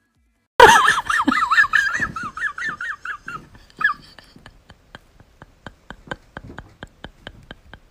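Kitten giving a run of quick, wavering high-pitched squeaking cries that fade after about three seconds, followed by faint rapid ticking at about four a second.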